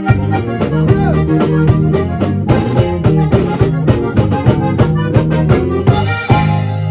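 Norteño band playing live and instrumental: accordion melody over guitar, electric bass and a steady drum beat. About six seconds in they strike a final chord and hold it to close the song.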